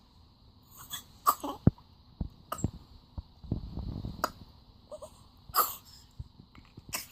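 A baby making a string of short coughs and throat-clearing sounds, spaced irregularly over several seconds.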